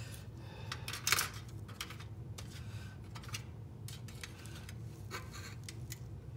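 Light clicks and clatters of small plastic model-kit parts and tools being handled on a metal tray, the loudest rattle about a second in, over a low steady hum.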